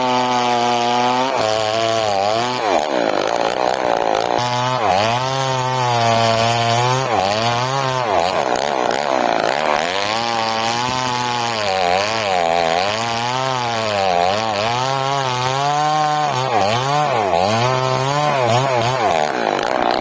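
Chainsaw cutting through a felled sengon log. The engine runs at a steady high pitch for about a second, then its pitch sags and recovers again and again as the chain bites into the wood and frees up.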